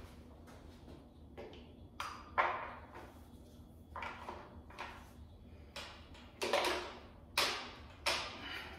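Irregular sharp clicks and knocks, about eight of them starting about two seconds in, as a fuel rail with its injectors is handled and fitted onto an LS V8's intake manifold.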